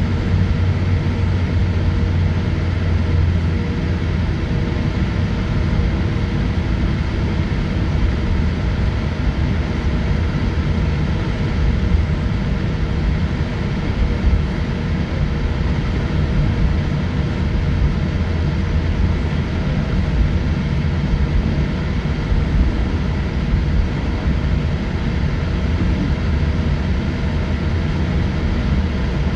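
Cabin noise of a Boeing 787-8 taxiing, heard from a window seat: its Rolls-Royce Trent 1000 engines at low taxi power, with a steady low rumble and a faint steady hum. A few light bumps come from the wheels on the taxiway.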